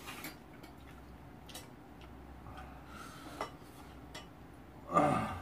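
Chopsticks and spoons clicking lightly against bowls and pots during a meal, a few scattered taps. About five seconds in, a brief louder vocal sound stands out.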